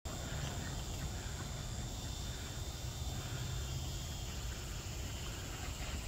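Steady woodland ambience: a constant high insect trill over a low, even rumble.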